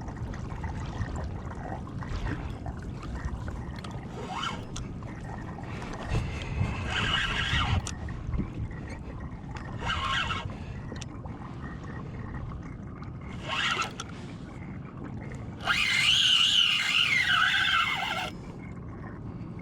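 Wind and water noise on a kayak, broken by several short higher-pitched bursts, the longest and loudest lasting about two and a half seconds near the end, with a wavering pitch.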